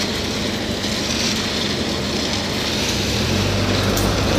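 A loaded Tata tipper truck's diesel engine running as the truck drives over a gravel stockpile, with a steady low hum and hiss. The engine note grows louder and deeper about three seconds in.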